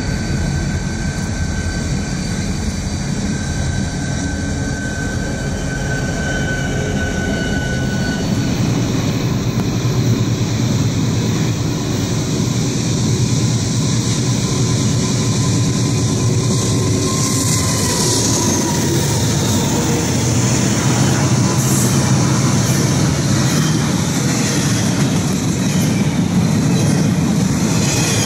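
Freight train passing close by: a pair of EMD SD40-2 diesel locomotives running light, then a long double-stack intermodal train whose locomotive passes and whose container well cars roll by with a steady heavy rumble of wheels on rail. A thin steady whine is heard during the first few seconds.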